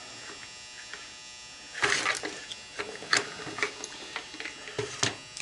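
Metal clanks and clinks of hand tools, a socket set and a small electric motor's casing being handled on a steel workbench, starting about two seconds in with the loudest clank first, then a few more scattered knocks. A steady low hum runs underneath.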